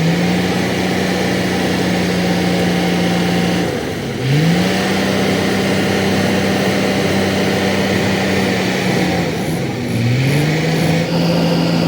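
An engine revved up and held at a steady high speed, then let fall back and revved again, three times.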